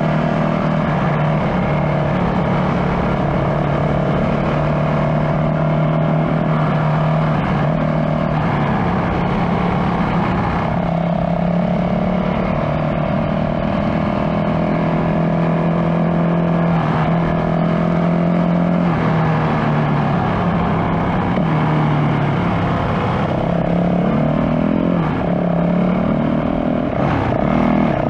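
Yamaha WR450F dirt bike's single-cylinder four-stroke engine running under way, its note holding steady for stretches and stepping up and down a few times.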